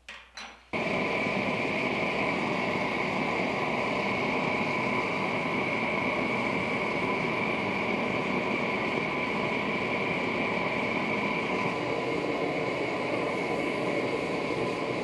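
Small propane forge's burner running: a steady rushing hiss with a faint high whistle that starts suddenly about a second in, as a knife blade is brought to heat for hardening.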